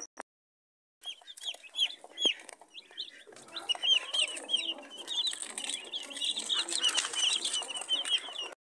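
A flock of baby chicks peeping, with many short high peeps overlapping. It starts about a second in, grows busier, and cuts off just before the end.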